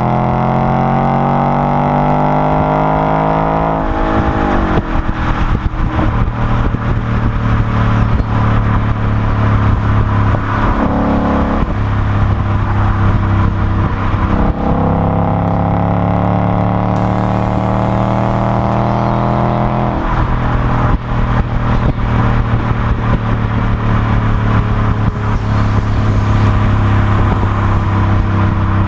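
2015 Ford Mustang GT's 5.0-litre V8 through an aftermarket Velocity sport muffler, accelerating hard. The engine pitch climbs and then drops sharply at each of about four upshifts.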